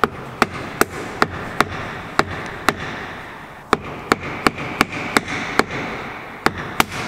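A cloth-wrapped hammer knocking on a squeegee tool pressed against a car's wing-mirror cap: about fifteen sharp knocks, two or three a second with short pauses. The knocks are driving the mirror cap's retaining clips loose so the cap can come off.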